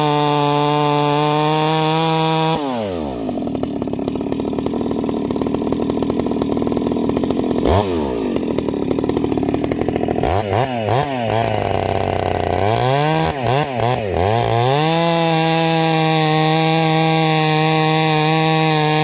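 Husqvarna 390 XP two-stroke chainsaw with a ramhorn muffler and a 32-inch bar of full-house chisel chain, running at full throttle. About two and a half seconds in it drops in pitch as it pulls into a cut and saws under load for about seven seconds. Then the revs dip and climb several times before it settles back to a steady full-throttle scream near the end.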